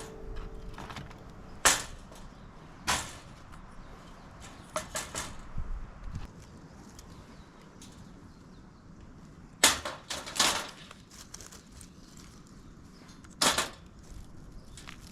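Firewood snapping and knocking: scattered sharp cracks a few seconds apart, with a quick cluster of smaller snaps about five seconds in and a loud double crack about ten seconds in.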